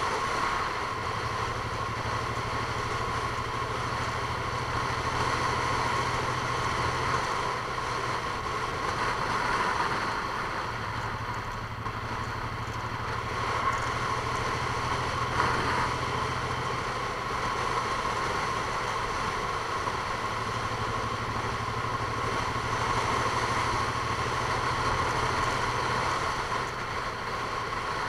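Steady engine noise of a running vehicle: a constant low hum under a steady higher drone.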